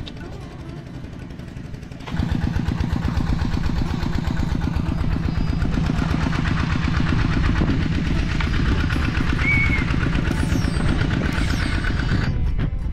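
A small engine running steadily with a fast, even firing pulse, becoming much louder about two seconds in.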